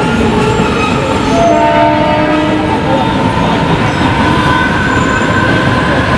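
Mumbai suburban EMU local train running past, a loud steady rush of wheels on rail with several whining tones held over it.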